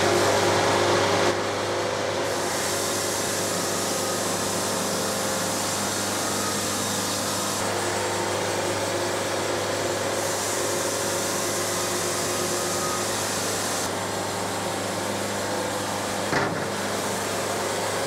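Wood-Mizer LT70 band sawmill running steadily as its band blade cuts along a walnut log, with a constant hum underneath. The hiss of the cut grows and fades in stretches.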